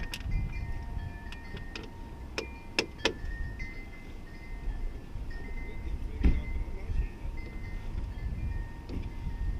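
Wind chimes ringing, with a handful of sharp clicks and knocks in between, the loudest about six seconds in.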